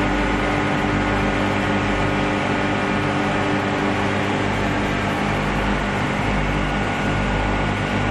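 Olive oil mill machinery running with a steady, even hum of several held tones and no change in speed.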